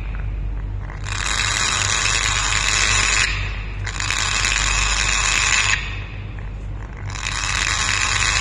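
Timneh African grey parrot making long, harsh hissing calls with its beak wide open: three of them, each about two seconds, with short gaps between. A steady low hum runs underneath.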